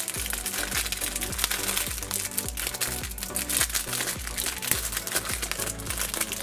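Thin plastic snack wrapper crinkling and rustling as an individually wrapped coffee cake is peeled open by hand, over background music with a repeating bass line.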